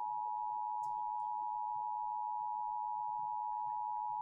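Emergency Alert System attention signal: a steady two-tone alarm held without a break, sounding for a test of the Illinois Emergency Alert System.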